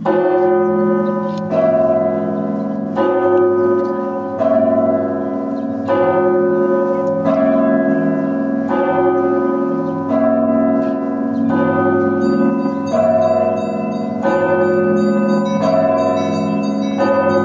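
Russian Orthodox monastery church bells ringing in a steady repeating pattern, a fresh set of strokes about every second and a half over the lingering hum of the larger bells. Small high-pitched bells join in about two-thirds through.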